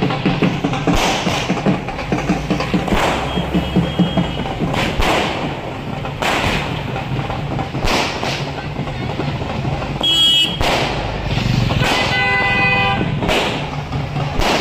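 Dhol drumming: loud, sharp strikes every second or two over a dense, steady din. A horn blares briefly about ten seconds in and again for about a second near the end.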